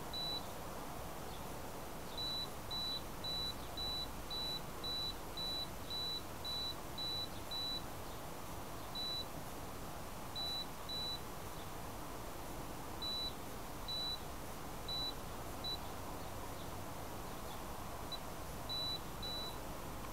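Short, high electronic beeps from the downed quadcopter's beeper, about two a second for several seconds and then at uneven gaps, over a steady hiss.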